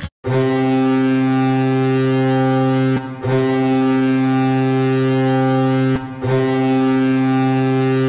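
Colorado Avalanche goal horn (2010-11 season) sounding three long blasts of about three seconds each: a low, steady horn tone with strong overtones.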